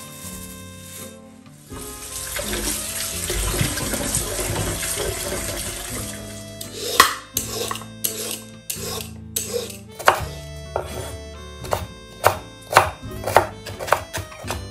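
Background music throughout. From about halfway, a peeler scrapes a few strips off a carrot, then a knife mincing carrot on a bamboo cutting board in quick repeated knocks, about two a second.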